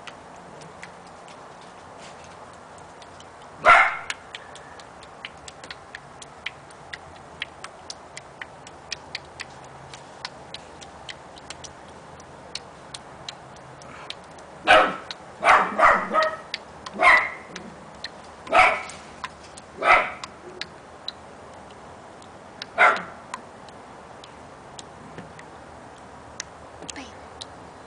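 A dog barking, about nine short barks: one about 4 s in, then a run from about 15 to 23 s. Faint irregular ticks run underneath.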